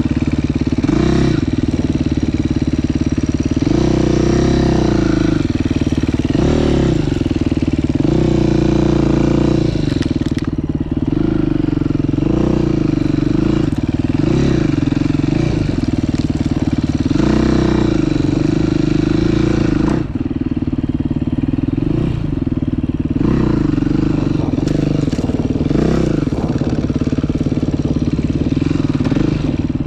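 Dirt bike engine being ridden hard, its revs rising and falling again and again every second or two as the throttle is worked.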